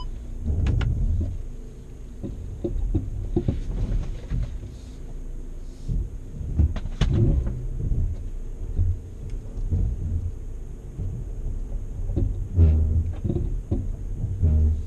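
Cabin sound of a VW Amarok with its 2.0 BiTDI twin-turbo diesel driving over rough offroad ground: a steady low rumble with frequent knocks and rattles as the truck jolts over bumps, the heaviest jolts about seven seconds in and near the end.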